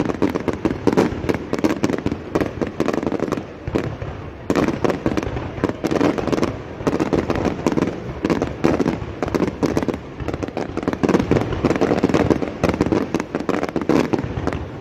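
Fireworks display going off: a dense, continuous crackling of many small bangs and pops, with no pause.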